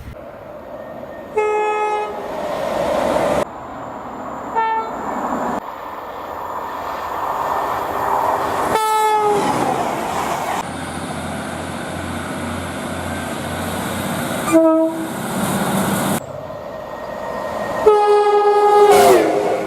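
Train horns sounding in a run of separate recordings: about five blasts, each a chord of several notes, two of them dropping in pitch near their end. The rumble of passing trains fills the gaps, with abrupt changes where one recording gives way to the next.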